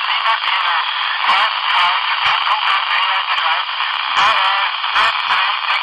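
Open-squelch FM static from a handheld transceiver's speaker tuned to the SO-50 satellite downlink: a steady, thin hiss with faint wavering traces of weak signals in it and a few short clicks.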